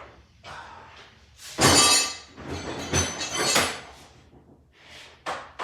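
Ridgid Pro modular toolbox cases being handled and stacked: several clattering knocks and rattles, loudest about a second and a half in and around the three-second mark, with a sharp knock at the very end.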